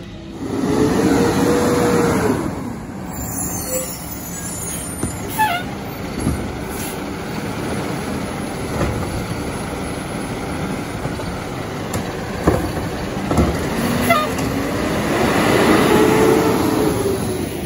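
Residential garbage truck at work: its engine revs up and back down twice, about fifteen seconds apart, as it powers the hydraulics, with a few sharp knocks and clanks in between.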